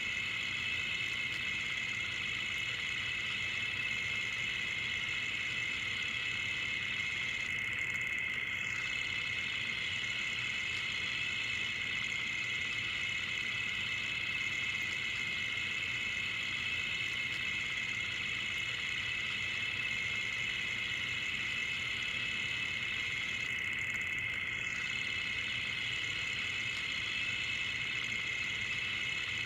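Film projector running, a steady mechanical clatter without a break.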